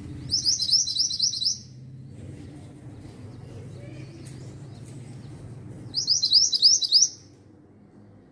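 A mantenan songbird singing two short bursts of rapid high chirps, each about a second long, one near the start and one about six seconds in, over a steady low background rumble.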